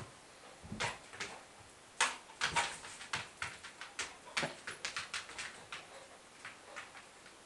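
Red setter jumping repeatedly at a raised broom, its paws and claws knocking and clicking on the hard floor as it lands, in a quick, irregular string of sharp knocks.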